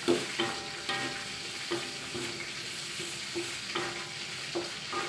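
Wooden spatula scraping and knocking against an aluminium wok while vegetables in chili paste are stirred over a steady sizzle. About a dozen irregular strokes, some leaving a brief ring from the wok.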